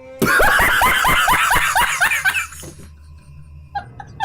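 A person laughing: a loud, rapid string of 'ha-ha' laughs lasting about two and a half seconds, then softer, rhythmic laughter starting near the end.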